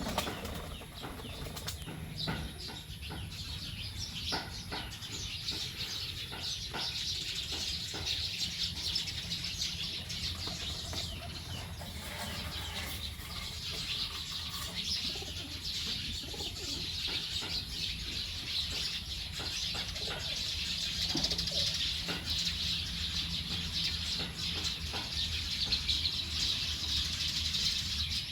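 A large flock of birds chattering densely and without pause as they settle to roost, with scattered wing flaps.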